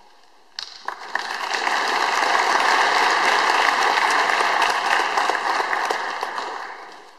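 Audience applauding: a dense spread of clapping that starts about half a second in, swells, and fades away near the end.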